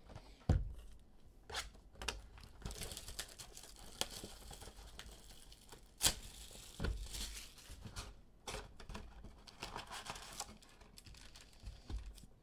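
Plastic shrink wrap crinkling and tearing as it is stripped off a cardboard trading-card hobby box, then the box opened and handled. A sharp knock comes about half a second in.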